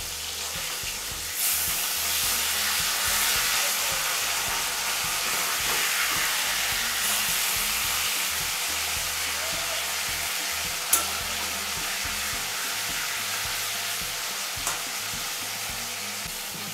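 Catfish pieces frying in hot mustard oil in a metal kadai, a steady sizzle, while a steel spatula turns them over with the flame off for the flip. The sizzle swells a little over a second in and then slowly eases, with two sharp clinks of the spatula against the pan in the second half.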